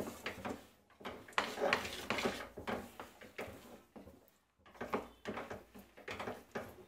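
A spoon scraping and stirring around a stainless-steel kadhai, turning chopped nuts and seeds through sticky melted jaggery, in repeated strokes broken by two short pauses.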